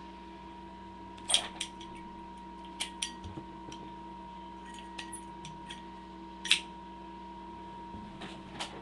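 Sharp metal clicks of a generic Zippo-style windproof lighter being handled, its hinged lid flicked open and snapped shut, scattered through at irregular intervals; the loudest click comes about six and a half seconds in.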